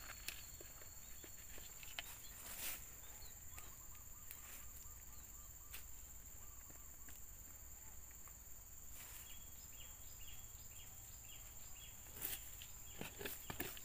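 Faint scuffs and occasional light knocks as soil and dry litter are scooped over buried fertilizer at the base of a young oil palm and trodden down by foot, over a steady high insect drone and a few faint chirps.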